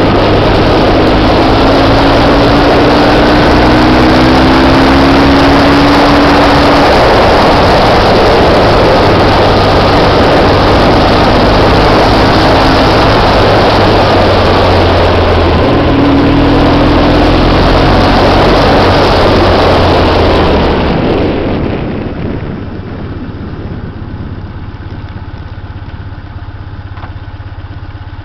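Motorcycle riding along at road speed, its engine running under heavy wind rush on the microphone. About 21 seconds in the wind noise falls away as the bike slows, leaving the engine running quietly at low speed.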